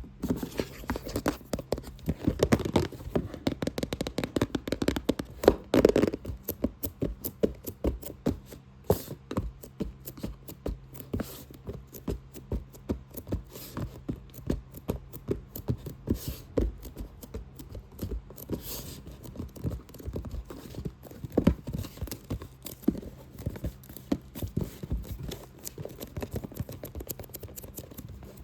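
Fast, aggressive tapping and scratching on a box, a dense run of quick, irregular taps.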